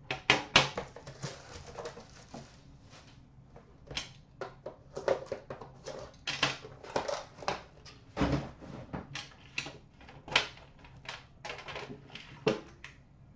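Handling of a metal Upper Deck The Cup hockey card tin: irregular clicks, taps and knocks as the tin is opened and set down on a glass counter, with card packaging rustling between them. The loudest knocks come just after the start and about eight seconds in.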